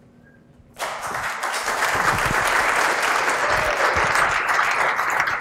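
Audience applauding, starting suddenly about a second in and keeping up steadily.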